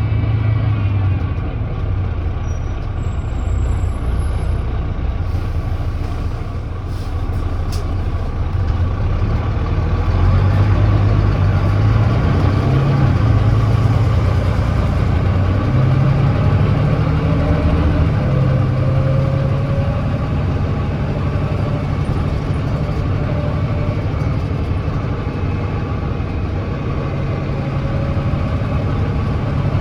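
Volvo D9B 9.3-litre diesel engine of a Volvo B9TL double-decker bus pulling hard uphill on kickdown. The ZF Ecolife automatic gearbox shifts from second to third, and the engine note climbs and grows louder.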